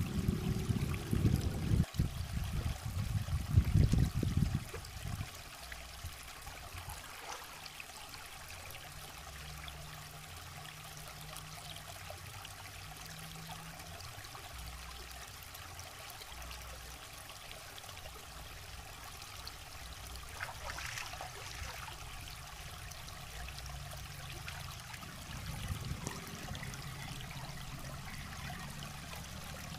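Shallow river water trickling over rocks, with a loud low rumble in the first five seconds.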